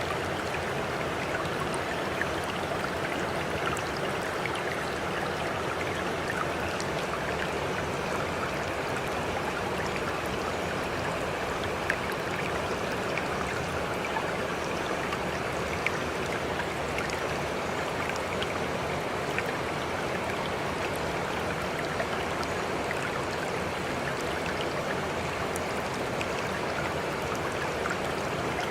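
Water flowing steadily, a continuous rushing with small splashes and the odd sharper drip or tick.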